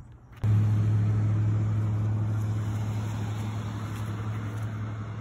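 A motor's steady low drone that cuts in suddenly about half a second in and slowly fades.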